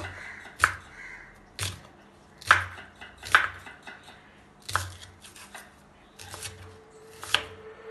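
Chef's knife slicing shallots on a wooden cutting board: sharp, uneven knocks of the blade striking the board, about one a second.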